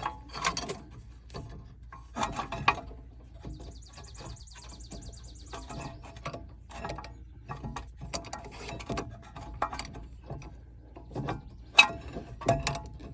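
A C-clamp being worked against a rear brake caliper to push its piston back into the bore: irregular metallic clicks, knocks and creaks from the clamp and caliper.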